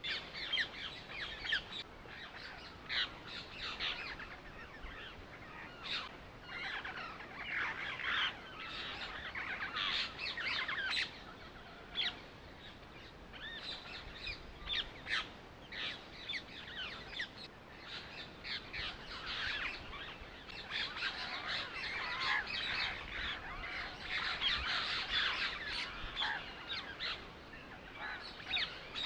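Birds chirping and twittering, many short calls overlapping in a dense, continuous chorus.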